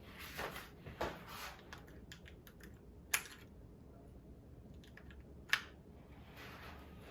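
Light plastic clicks and taps from handling a mechanical keyboard's keycaps during a keycap swap, with soft rustling near the start and two sharper clicks about two and a half seconds apart.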